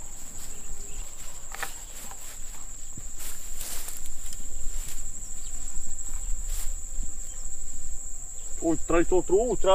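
Insects in a rice field chirring in a steady, high-pitched drone, with a few brief rustles of steps through grass. A man's voice starts near the end.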